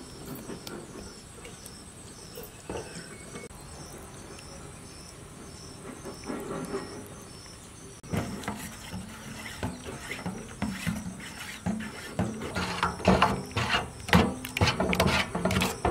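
A steel spoon stirring thick sauce in a stainless-steel bowl, scraping and clinking against the metal in quick repeated strokes. It starts about halfway through and grows louder towards the end. Before that, insects chirp steadily in the background.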